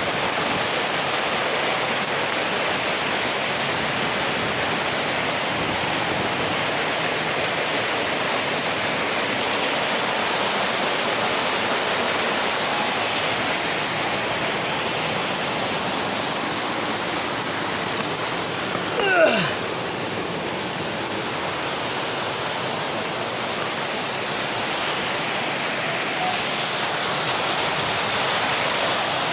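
Steady rushing roar of a mountain waterfall. About two-thirds of the way through, a brief sound sweeps down in pitch over it.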